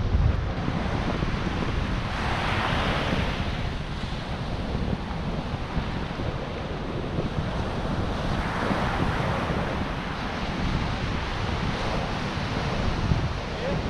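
Ocean surf breaking on a sandy beach, the wash swelling louder twice, with steady wind buffeting the microphone.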